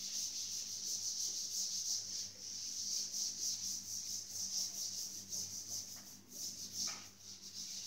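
A duster wiping chalk off a blackboard in quick, repeated back-and-forth strokes, giving a scratchy rubbing hiss that pulses with each stroke.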